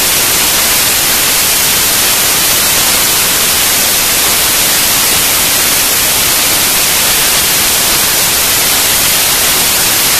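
Loud, steady static hiss like white noise, even and unchanging throughout, heaviest in the high range.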